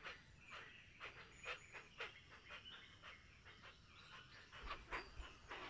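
Hoatzins giving faint, short, breathy calls, repeated about twice a second.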